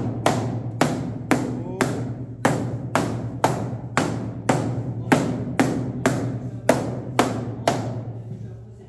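Background music with a steady drum beat, about two beats a second, over a sustained bass note, fading out near the end.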